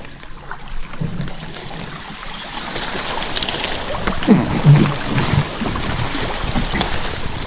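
River water splashing and rushing around a small boat, growing louder about a second in.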